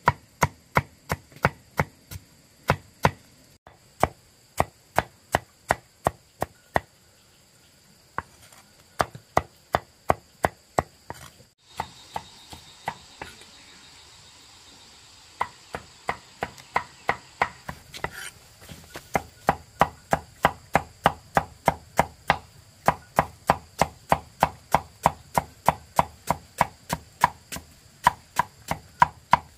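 Machete-style chopping knife striking cassava roots on a wooden board: quick, even chops, about two a second at first and about three a second in the second half, with a short pause about twelve seconds in.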